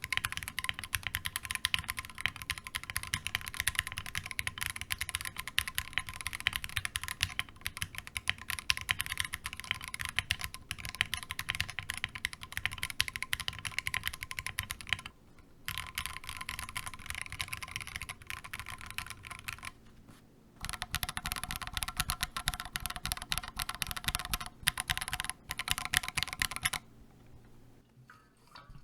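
Fast, continuous typing on a modded Akko MOD005 gasket-mounted mechanical keyboard with Akko Jelly Black switches: a dense run of keystroke clacks. It breaks off briefly twice and stops a couple of seconds before the end.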